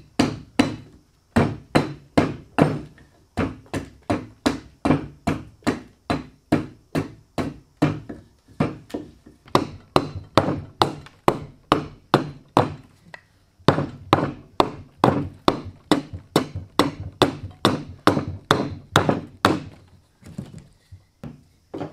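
Hatchet chopping into a block of cypress wood, roughing it out: a steady run of sharp chops, about two to three a second, with a few short pauses.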